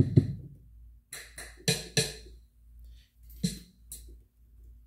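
GarageBand's Brooklyn software drum kit sounding about eight single hits at irregular spacing, some low and deep, some bright like a snare or cymbal, as drum sounds are tried out one at a time.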